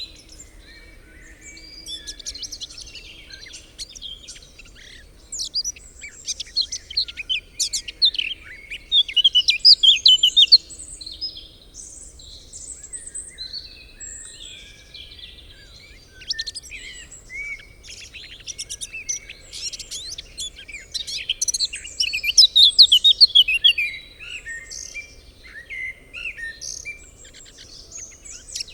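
Several songbirds singing and chirping at once in a forest evening chorus, with overlapping high trills and twitters that swell into busier flurries twice.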